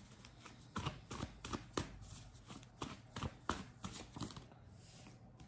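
A deck of reading cards being shuffled and handled, with quick irregular flicks and taps that thin out after about four seconds.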